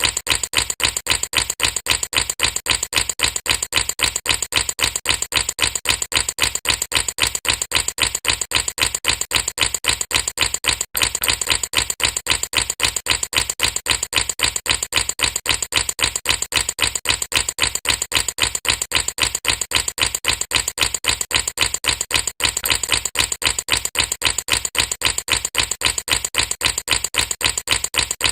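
Air bubbles popping in a steady, even rhythm, about four or five sharp pops a second, with a tiny break about every eleven seconds.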